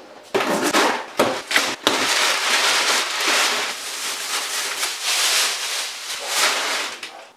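Crumpled kraft packing paper and a plastic bag crackling and rustling as they are pulled out of a cardboard shipping box. It starts with sharp crinkles in the first couple of seconds, then a continuous rustle that stops near the end.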